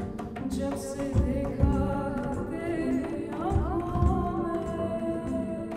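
A woman's voice singing long held notes with an upward slide about three seconds in, over upright double bass played in repeated low plucked notes.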